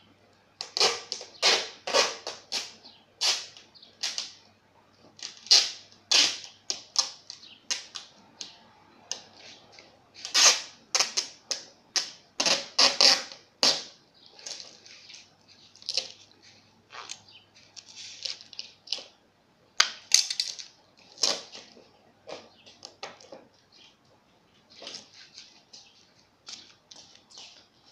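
Adhesive tape being pulled off the roll and pressed down, in irregular rasping strips with sharp handling clicks in between.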